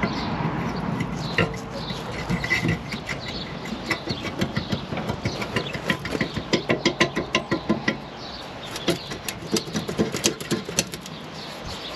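Quick runs of sharp metallic clicks and knocks, thickest in the middle, as the old rear shock absorber on a Land Rover Discovery 2 is worked loose from its seized mounting.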